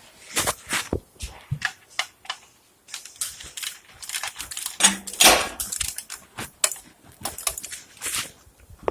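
A run of irregular clicks and knocks, with a louder, longer rushing clatter about five seconds in, typical of tools and parts being handled in a service bay.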